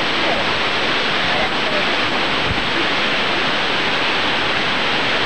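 Steady rushing noise at an even level, with faint voices in it.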